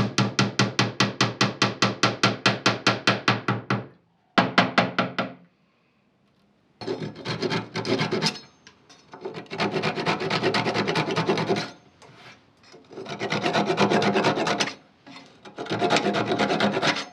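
Hand tools working wood: a fast run of short, even strokes, about seven a second, then several longer spells of rasping and rubbing, each a second or two, with short pauses between them.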